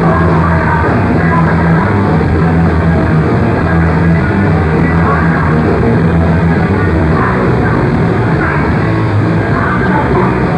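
A hardcore punk band playing live at full volume, with guitars, bass and drums and a singer yelling into the microphone. Recorded on a camcorder's microphone, so the sound is dense and dull, with little treble.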